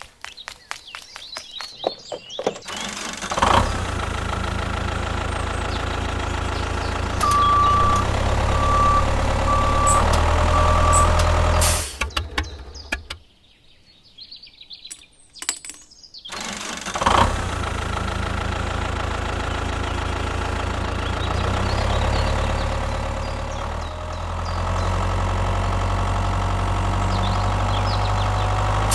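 An engine running steadily in two long stretches with a few-second break between them; short clicks come before it. Four short, evenly spaced beeps sound over the engine in the first stretch.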